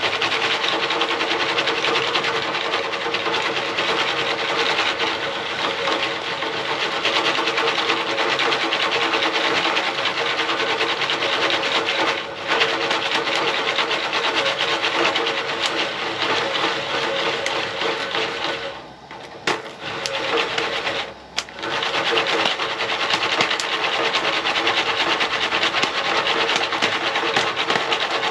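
An aluminium foil pan of stovetop popcorn being shaken back and forth over a propane camp-stove burner: a fast, steady rattle and sizzle of kernels and oil in the pan as the corn heats towards popping. The shaking stops briefly about 12 seconds in and twice more around 19 and 21 seconds in.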